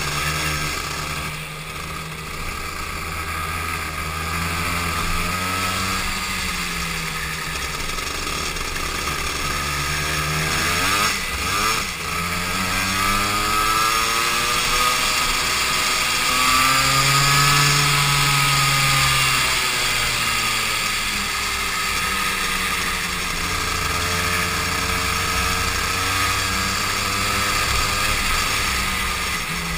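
Onboard sound of a rental go-kart's engine running hard through a lap, its pitch climbing as it accelerates and dropping as it slows for corners, several times over; it revs highest and loudest a little past halfway, then falls away and builds again.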